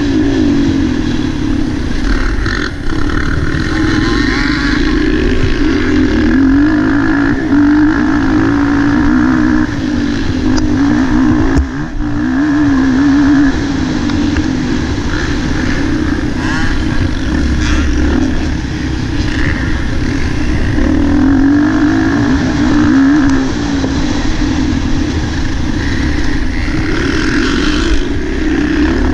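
Motocross bike's engine heard on board while racing, revving up and easing off again and again as the rider accelerates, shifts and brakes. A brief dip with a knock about twelve seconds in.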